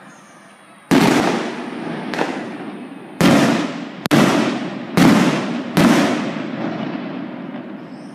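Aerial firework shells bursting: six loud bangs in about five seconds, each trailing off in a long rolling rumble. The rumble dies away slowly after the last bang.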